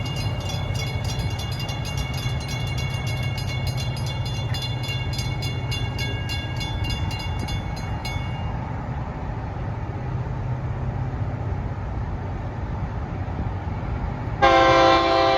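Florida East Coast Railway train: a diesel locomotive's steady low rumble, with a fast, high repeated ringing that stops about eight seconds in. Near the end the locomotive's air horn starts a loud blast, several tones sounding together as a chord.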